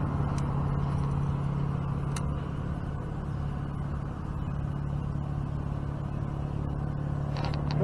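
A steady low motor hum with a rumble beneath it, and a quick run of sharp clicks just before the end.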